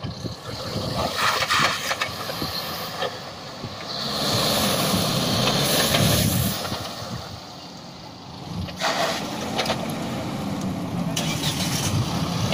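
Tata Hexa SUV's diesel engine running at low revs as it crawls through ruts and over dirt mounds on an off-road course. It grows louder about four seconds in and dips briefly around the eight-second mark.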